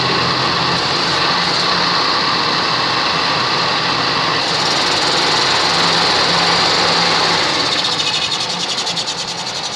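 Toyota Kijang's air-conditioning compressor running with a loud, harsh growl. This is a sign of internal damage from compressor oil that was never changed; the owner suggests the pistons and block could be scored. Near the end the noise breaks into a fast pulsing, about five beats a second, and begins to fade.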